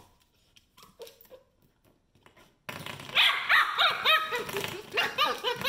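Pembroke Welsh Corgi puppy yapping and barking in a quick run of short, high-pitched yaps, starting about halfway in after a quiet stretch with a few light clicks.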